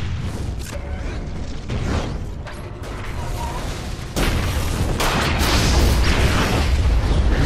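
Film explosion sound effects cut together: a continuous deep rumble of blasts and fire, with sudden cracks and crashing debris, and a bigger, louder blast about four seconds in.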